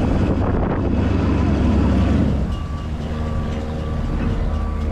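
Engine of a Hydra-Terra amphibious tour vehicle running steadily while it is under way on the water, with wind on the microphone. About halfway through the low rumble eases a little, leaving a steadier hum.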